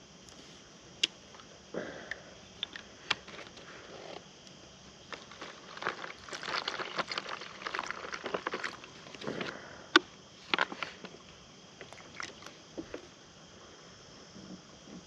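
Crinkling and rustling of a foil backpacking-meal pouch being handled, with scattered sharp clicks and taps. The crackling is thickest from about the middle onward.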